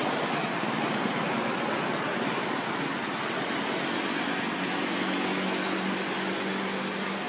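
Steady rushing background noise, with a faint low motor hum coming in about halfway through.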